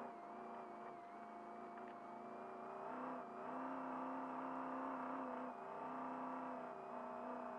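Trophy truck's race engine heard from inside the cab while driving off-road at speed. Its revs climb about three seconds in, with brief lifts of the throttle after that, over a steady high whine.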